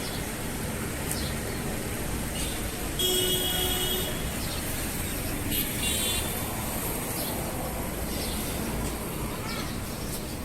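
Steady street traffic noise with a short vehicle horn toot about three seconds in and another brief toot about two seconds later.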